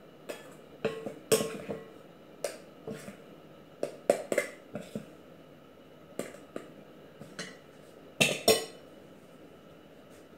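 A stainless steel measuring cup scooping flour and clinking against bowls and a metal sieve: a run of irregular sharp knocks and clinks, with the loudest pair near the end.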